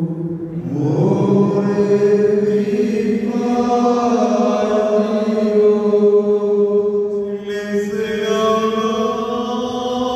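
A priest's voice chanting a slow Malankara Orthodox liturgical hymn of blessing, holding long notes that move to a new pitch about a second in and again near eight seconds.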